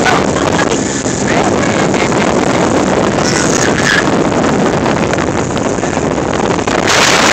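Wind buffeting the phone microphone on a motorboat running at speed, over the steady rush of the boat through the water. It grows a little louder near the end.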